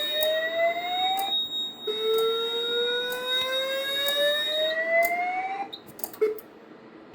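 Fire alarm voice-evacuation speaker sounding a whoop alert tone: a pitch rising slowly over about three and a half seconds, played twice with a short gap, over a steady high tone and faint ticks about once a second. The tone cuts off after the second sweep, followed by a few clicks.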